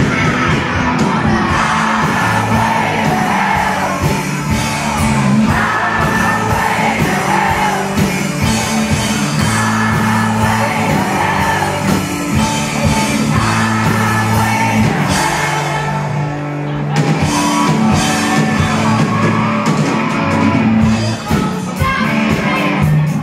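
Live rock band playing: electric guitars, bass guitar and drum kit with a singer, heard from the crowd in a large hall.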